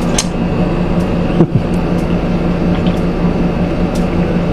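A steady low hum, with a few light clicks and a short falling swoosh about a second and a half in.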